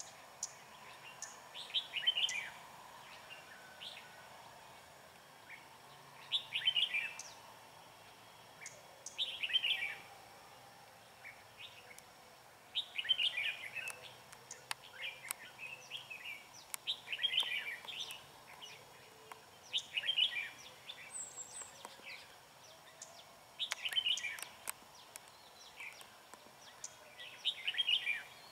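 Red-whiskered bulbuls singing, giving short, bright song phrases every few seconds.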